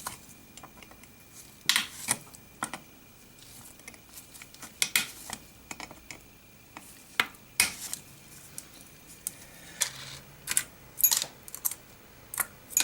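Sharp, irregular metallic clicks and taps, a dozen or so spread a second or so apart, as small screws and clamps are unscrewed from a car amplifier's circuit board and set down.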